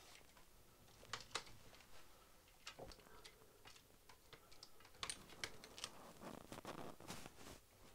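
Faint scattered clicks and taps of a clear acrylic hand roller being worked over a plastic sheet on a wooden tabletop, followed about six seconds in by a soft rustle as the plastic sheet is peeled up.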